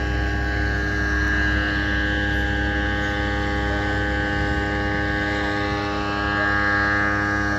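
A steady engine drone: a low rumble under a rich stack of steady pitched tones, swelling slightly near the end.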